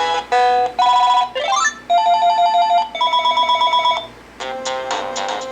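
Cordless phone base playing its built-in ringer tones one after another as they are previewed. Short electronic melodies give way to a rising sweep, then warbling trill rings, then a plucked-sounding melody near the end.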